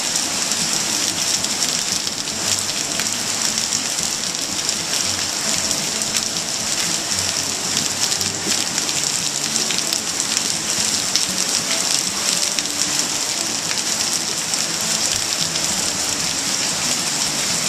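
Steady, unbroken hiss of heavy rain falling on wet foliage, blended with the rush of a flooded brook.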